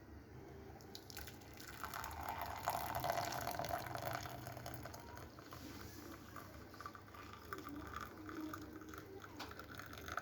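Tea being poured from a pan or pot into a cup, a splashing trickle that starts about a second in, is loudest for the next few seconds, then goes on more thinly.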